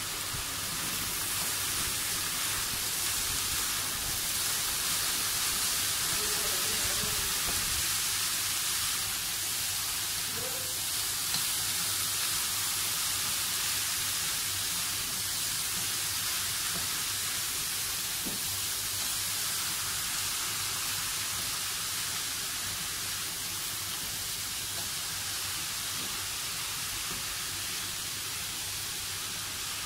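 Finely chopped beetroot frying in an oiled pan on a gas stove, giving a steady, even sizzle while it is stirred.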